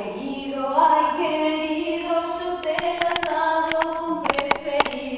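Several voices singing together, holding long notes that move in slow steps. A few sharp clicks cut in during the second half.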